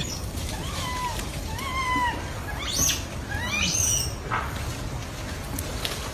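Baby macaque calling: two short coo calls about a second and two seconds in, then two shriller calls sweeping upward near three and four seconds.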